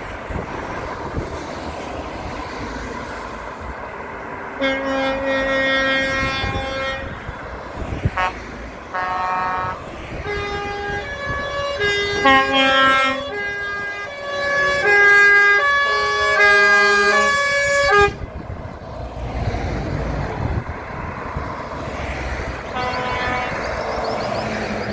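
Trucks driving past in a convoy, engines and tyres running, while a truck's multi-tone air horn sounds a held chord and then plays a tune of changing notes for several seconds. The horn cuts off sharply about two-thirds of the way through.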